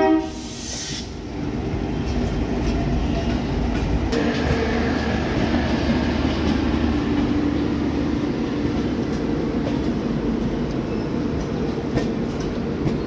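An LHB passenger train running along the track: a steady rumble of the coaches with a few faint clicks of the wheels over rail joints.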